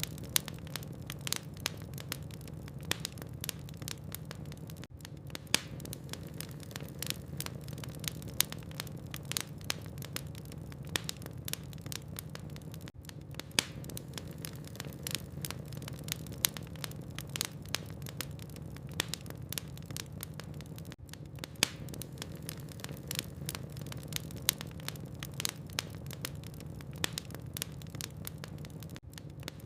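Logs burning in a fireplace, crackling with many small irregular pops and snaps over a steady low hum.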